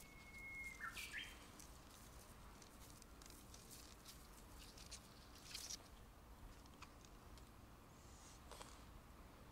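Faint, scattered crunches and rustles of a cat chewing a blade of grass. A bird whistles one held high note for about a second at the start, ending in a short chirp.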